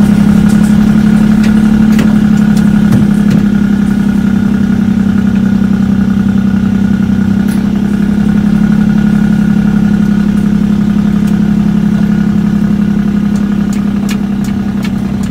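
Heavy truck's diesel engine running at a steady drone while cruising, heard from inside the cab, with occasional light clicks and rattles.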